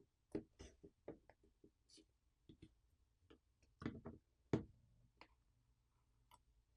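Scattered light clicks and taps of the tablet and tools being handled on a work surface, faint overall, with two louder knocks about four seconds in.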